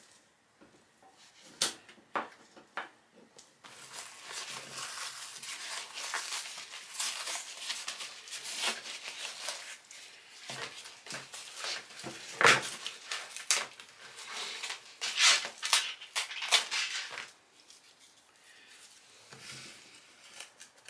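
Old vinyl trim covering and its crumbling foam being torn and peeled off the board backing of a car interior panel. A few light clicks at first, then a long stretch of ripping and scraping with sharp cracks, which dies down to light rustling near the end.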